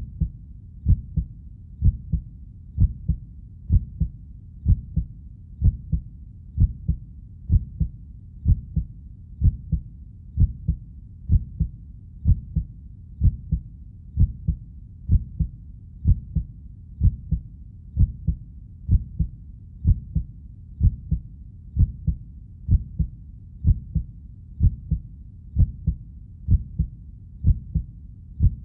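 Heartbeat sound effect: a steady, regular lub-dub, each beat a pair of low thumps, at about one beat a second.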